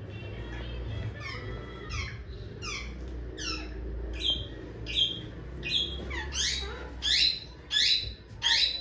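Parrot squawking: a run of sharp calls, each sliding down in pitch, repeated about every 0.7 s and getting louder over the last few seconds.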